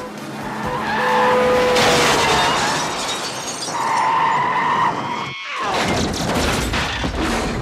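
Car tyres squealing in two long screeches, with a loud crash about two seconds in. After a brief cut-out near the end comes a second crash of crumpling metal and shattering glass with clattering debris.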